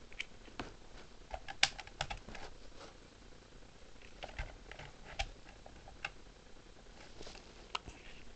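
Irregular light clicks and knocks of hard plastic from handling a toy RC helicopter and the charging cord of its remote.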